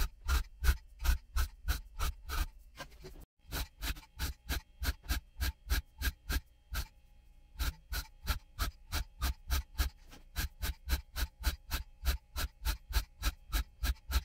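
Handheld tufting gun firing yarn into taut primary tufting cloth stretched on a frame: a rapid, even run of sharp mechanical strokes, about three to four a second, with a couple of brief pauses.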